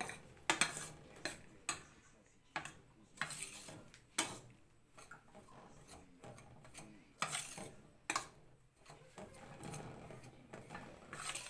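A spoon stirring and scraping in a pan in irregular strokes, about one a second: flour being roasted for halva.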